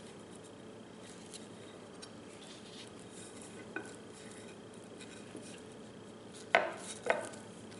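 A small knife trimming flesh off shark jaws on a plate, with faint scrapes and ticks. About six and a half seconds in come two sharp clinks half a second apart, the blade knocking against the plate.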